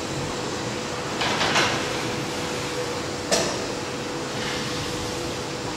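Museum display model of a 1910 triple-expansion marine steam engine, sectioned and driven slowly by an electric motor through its crankshaft pulley. A steady hum with a faint steady tone runs throughout, and there are sharp knocks about a second and a half in and again just past three seconds.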